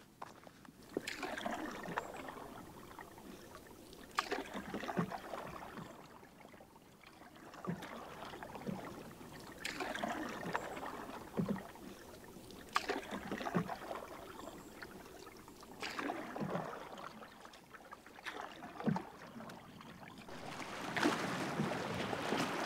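Canoe being paddled: a splashing swish of the paddle in the water about every three seconds, with a light knock at some strokes. A steadier rush builds near the end.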